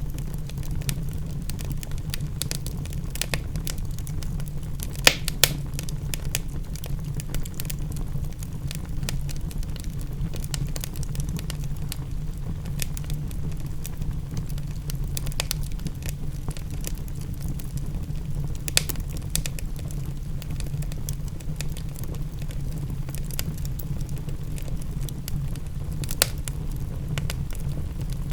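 Wood fire in a fireplace crackling, with irregular sharp pops (a few louder ones) over a steady low rumble.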